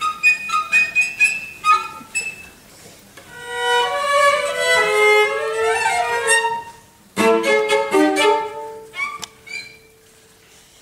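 A cello quartet playing: short, separated bowed notes, then held notes that slide in pitch, a sudden loud chord about seven seconds in, and the music stops shortly before the end.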